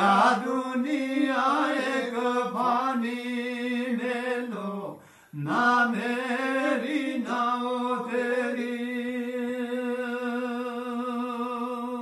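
A man's voice singing unaccompanied in slow, ornamented chant-like phrases, breaking off briefly about five seconds in, then holding one long steady note through the second half.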